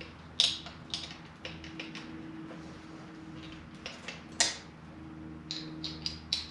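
Irregular light metallic clicks and clinks from an Allen wrench and a cordless cut-off tool being handled, the sharpest about four seconds in, over a steady low hum.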